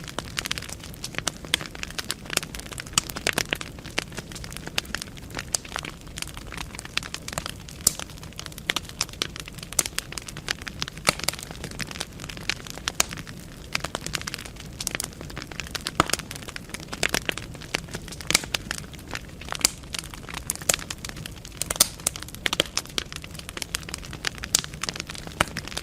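Wood fire burning in a fireplace, logs crackling and popping irregularly over a low steady rumble.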